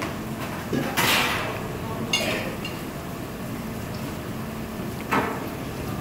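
Fork tapping and scraping on a ceramic plate, with a short metallic clink about two seconds in and a couple of brief rustling noises.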